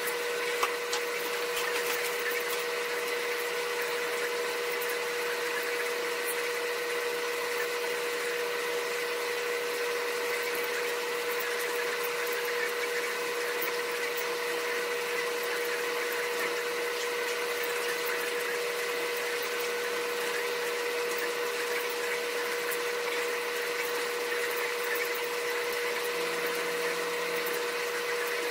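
Steady machine hum with a constant mid-pitched tone and a hiss behind it, unchanging throughout.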